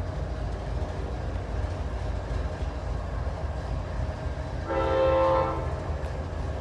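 Train running past with a steady low rumble, and a locomotive air horn sounding one blast of about a second near the end.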